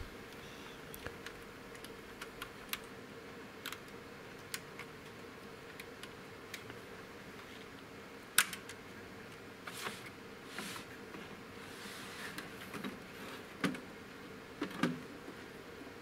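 Scattered light clicks and taps, then a sharper click a little past halfway and a few short scrapes and knocks, as the perforated sheet-metal power-supply cover on the front of an HP 9000 rp7410 server is unlatched and pulled off. A faint steady hum runs underneath.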